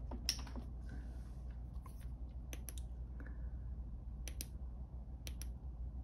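Several short, sharp clicks, a few in quick pairs, over a steady low hum.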